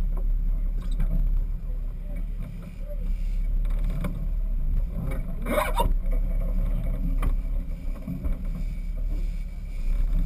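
Sportfishing boat under way: a steady low rumble of its engines and water along the hull, with one brief louder noise about five and a half seconds in.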